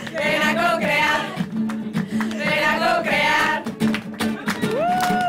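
A group singing a jingle together to an acoustic guitar, with hand claps keeping a steady beat. Near the end the singing gives way to high gliding whoops.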